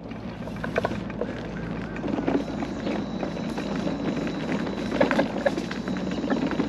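Mobility scooter rolling along a concrete park path: a steady motor hum under a wash of rumble, with a few short knocks and clicks about a second in, two seconds in and twice around the five-second mark.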